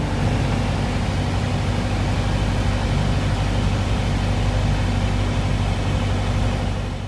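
Small propeller airplane's piston engine running steadily, heard from inside the cockpit as an even drone with a low hum, dropping off sharply at the very end.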